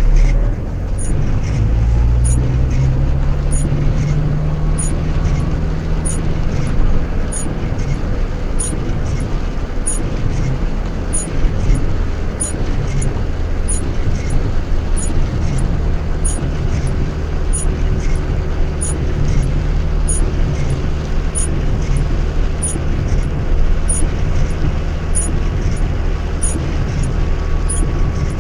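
A car driving on a wet road in the rain, heard inside the cabin: steady engine and tyre rumble, with the engine note rising over the first few seconds. A faint, regular tick comes a little more than once a second.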